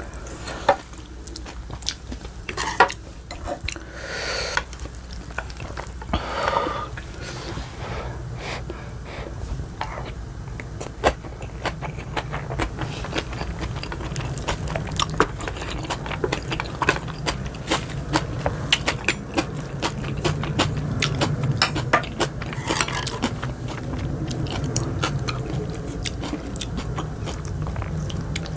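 A person chewing and biting soft, wet food close to the microphone: raw oysters in spicy dressing with boiled pork and rice. There is a dense run of quick, moist mouth clicks and smacks.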